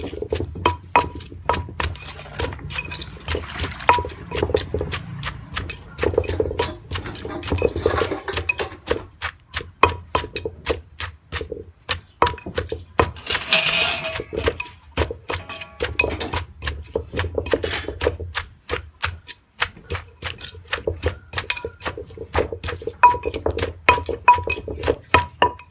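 Wooden pestle pounding som tam in a clay mortar: quick, even strikes, about three a second, with a brief scrape of a spoon turning the mix partway through.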